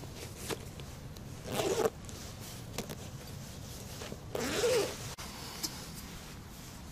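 A zipper pulled twice, two short rasping strokes about three seconds apart, with a few faint clicks between them.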